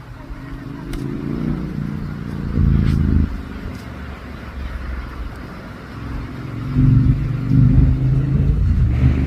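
A motor vehicle's engine running, swelling louder twice, about a second in and again near the end.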